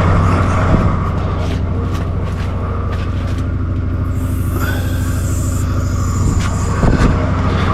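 Chrysler 245 Hemi straight-six running steadily at idle on a Holley 350 carburettor, with a few light knocks over it.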